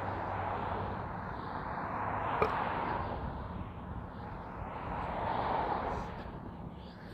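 Road traffic passing, an even rush of tyre and engine noise that swells twice as vehicles go by, with one small click about two and a half seconds in.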